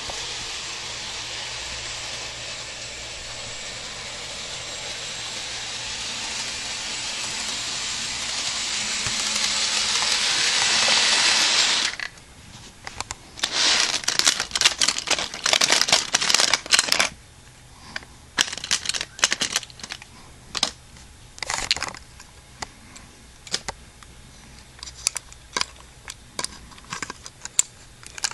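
Bachmann electric model train running along its track with a steady whirr that grows louder for about twelve seconds and then stops abruptly. After that come irregular clicks and knocks of toy engines and cars being handled on the track.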